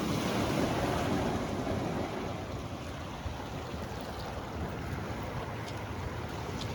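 Steady rushing outdoor noise of wind and water, swelling a little over the first couple of seconds.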